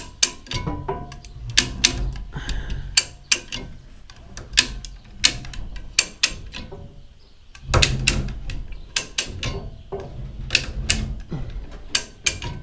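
A ratchet being worked in short strokes, sharp metal clicks in uneven runs with occasional heavier clanks of tools on the chipper's steel. There is a pause of about a second just past the middle.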